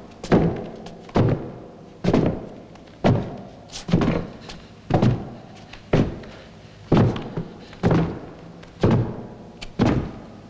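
A slow, even series of heavy thuds, about one a second, each dying away briefly.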